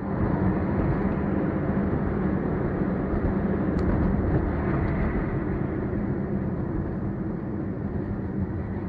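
Steady driving noise of a car heard through a dashcam: engine and road noise while cruising, with a low hum.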